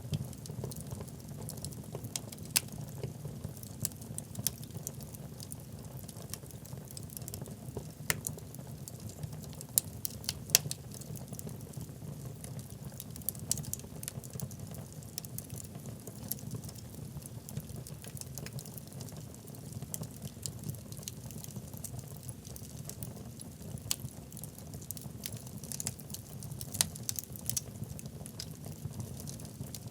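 Wood fire burning in a fireplace: a steady low rumble of flames under irregular sharp crackles and pops from the burning logs, with a few louder pops about ten seconds in.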